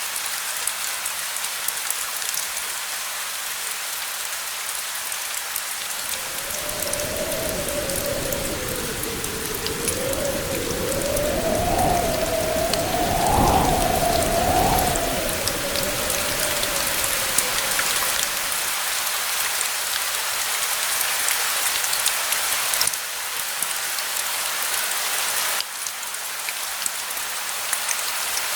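Steady rain pattering as an even hiss. About six seconds in, a long, low rumble of distant thunder swells up, peaks a little before the middle, and fades away by about eighteen seconds.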